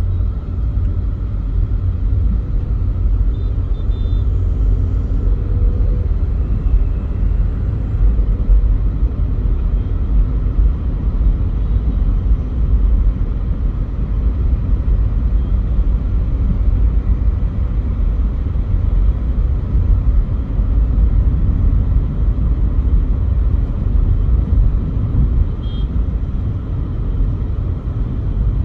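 A Volkswagen Polo GT driving, heard from inside the cabin: a steady low rumble of engine and road noise.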